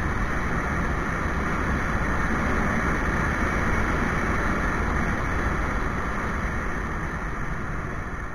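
Motorcycle riding along at speed: a steady mix of engine and wind noise on an action camera, getting a little quieter near the end.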